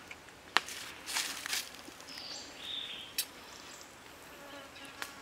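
Forest ambience with two short bird chirps about two to three seconds in, amid a few sharp clicks and a brief rustle.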